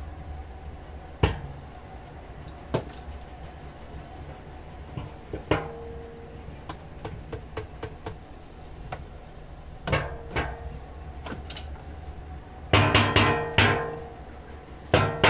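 Wooden beehive frames knocking and clattering against a metal drum used as a steam wax melter, in scattered single knocks, some leaving the drum ringing briefly. Near the end a quick run of several knocks comes together.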